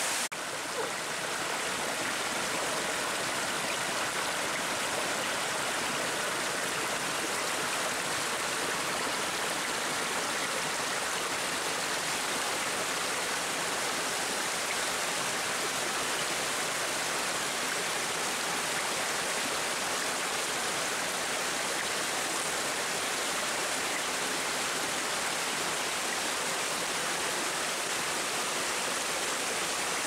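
Water of a small forest stream and waterfall rushing over rocks, a steady even rush.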